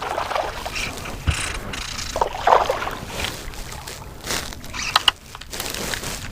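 Water splashing and scattered knocks against a small fishing boat as a hooked largemouth bass is played and brought in.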